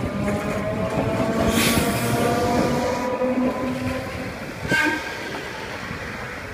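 Sapporo streetcar running along its street track, its motors whining in several steady tones that drift slowly in pitch. A burst of hiss comes about a second and a half in, and a short sharp noise near five seconds.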